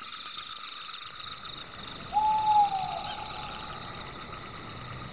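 Night ambience: insects chirping in quick repeated pulses throughout, with a single owl hoot about two seconds in that slides down in pitch.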